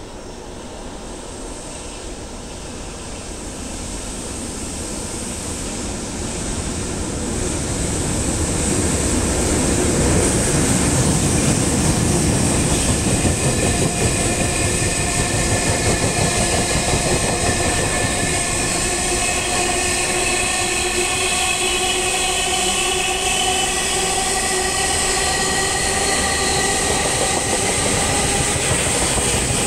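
A freight train hauled by an EH200 twin-unit electric locomotive approaches and runs through a station. It grows louder over the first ten seconds, then a long string of tank wagons rolls past at speed, with steady high ringing tones joining in over the second half.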